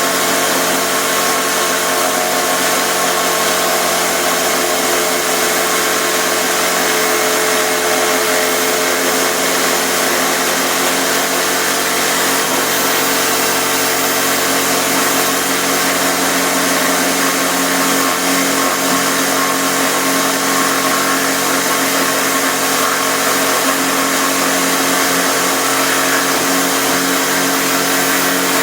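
Electric drill driving a router bit in a homemade router table, running steadily while the bit rounds over the edge of a wooden workpiece.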